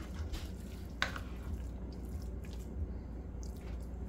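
Silicone spoon stirring and scraping cooked yellow rice in a pot, the rice starting to stick to the bottom; soft scrapes and scattered taps, the sharpest about a second in, over a steady low hum.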